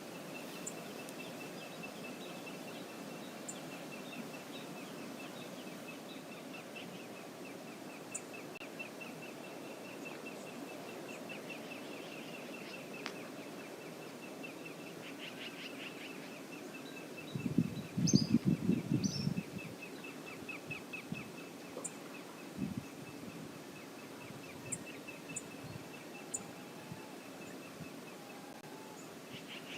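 Brooks River flowing as a steady low rush, with a faint high, rapidly pulsing tone and occasional sharp high ticks over it. About two-thirds of the way in, a loud cluster of low thumps lasts about two seconds, and a single thump follows a few seconds later.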